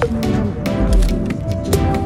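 Background music with a steady beat: sustained chords over sharp percussive ticks and a recurring deep bass swell.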